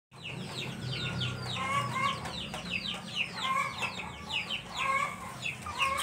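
Chickens clucking: a rapid run of short high chirps, each falling in pitch, several a second, with lower clucks now and then and a low steady hum underneath.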